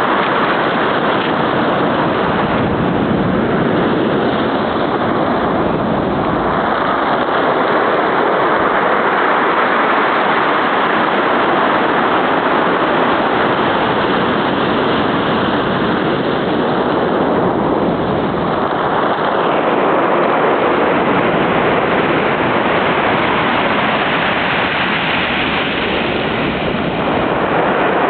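Ocean surf breaking and washing up the beach in a steady, continuous roar that swells and eases slowly.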